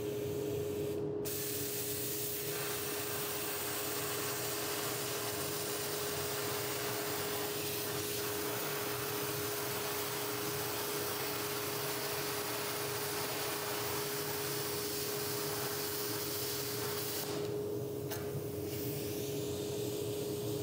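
BestArc BTC500XP plasma cutter cutting quarter-inch steel plate: a steady hiss of the arc and air with a constant hum. The hiss starts about a second in, drops out briefly near the end, then resumes as the cut continues.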